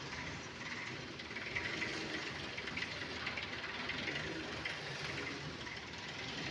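Road roller's engine running steadily, with a rattling, crackly noise over its low drone.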